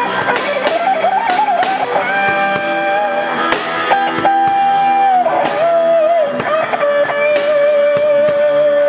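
Instrumental band music: an electric lead guitar plays long held notes with bends and vibrato over backing guitars and a drum kit keeping time on the cymbals.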